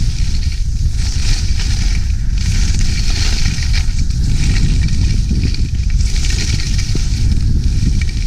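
Skis sliding over packed snow at speed, a hissing scrape that swells and fades several times as the skis turn, over a steady low rumble of wind on the microphone.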